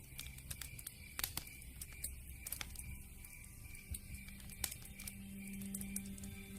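Campfire crackling: wood popping in irregular sharp clicks, a few of them louder, over a faint steady background.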